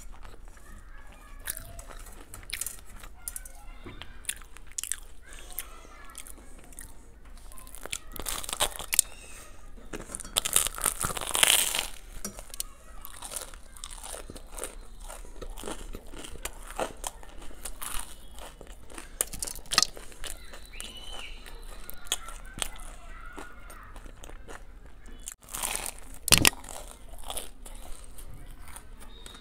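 Crunchy bites and chewing of a Kurkure burger, its coating of crushed Kurkure corn snacks crackling sharply with each bite. The loudest clusters of crunches come about a third of the way in and again near the end.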